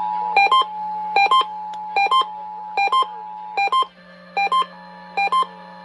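The Emergency Alert System's two-tone attention signal cuts off just after the start. It is followed by repeating electronic beeps, each a quick low-then-high pair, about one pair every 0.8 seconds, over a steady low hum. The beeping is typical of an EAS ENDEC unit alerting that it has received a test message.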